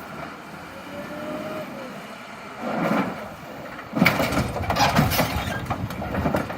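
Heavy machine running with its engine as it pulls at a burnt-out truck body. From about four seconds in there is loud crunching and clattering of metal being torn and bent.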